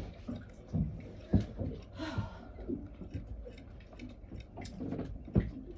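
Handling noises in a small room: a few separate knocks, the loudest near the end, and a short rustle about two seconds in.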